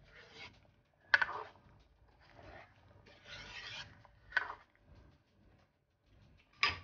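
Metal ladle scraping and knocking against a frying pan as a simmering curry is stirred: several short rasping scrapes and a few sharp clicks.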